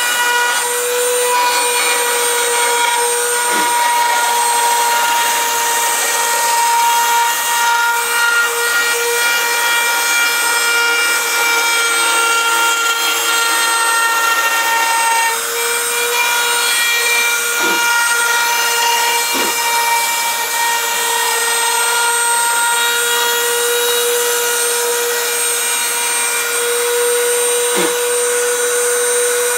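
Small high-speed rotary router running steadily with a high whine as it cuts the purfling channel around a guitar soundboard's rosette.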